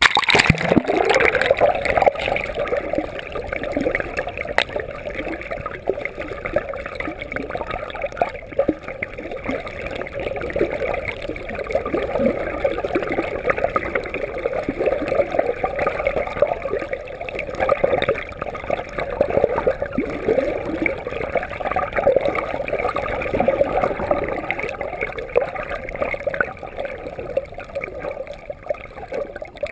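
Water gurgling and sloshing close by around a kayak, a continuous busy splashing with no pauses.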